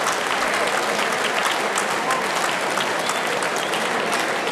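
Crowd applauding steadily, with some voices mixed in.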